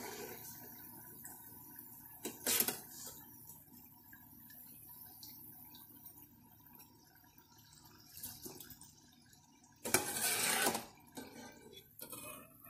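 Faint, steady sizzle of snack balls deep-frying in oil in a stainless saucepan, the bubbling died down as they turn crisp and done. A stainless slotted skimmer knocks against the pan a few times, with a louder, noisy clatter about ten seconds in.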